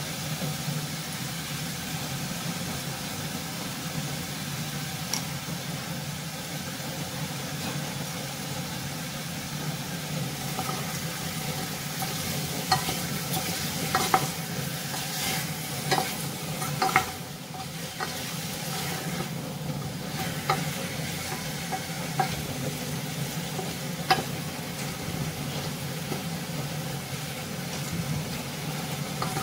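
Chicken pieces sizzling in a little oil in a stainless steel pot while being stirred with a wooden spoon. From about ten seconds in, the spoon knocks and scrapes against the pot in a string of sharp clicks. A steady low hum runs underneath.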